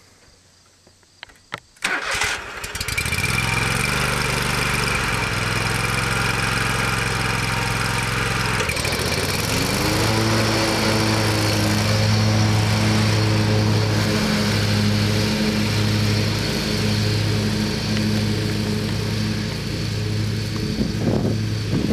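A 2006 Exmark Turf Tracer zero-turn mower's 20 hp Kohler Command engine is started: after a few faint clicks, it cranks and catches right away about two seconds in. It runs steadily, then about nine seconds in it rises in pitch to a higher steady speed and keeps running. It starts right up and runs well.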